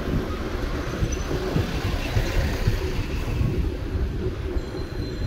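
Wind buffeting the microphone with a steady low rumble from riding an electric motorbike along a road.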